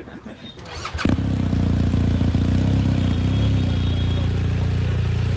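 Large adventure motorcycle's engine starting about a second in, then running steadily at a loud idle.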